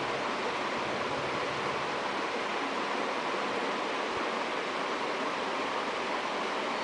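Steady, even hiss of background noise with no distinct events standing out.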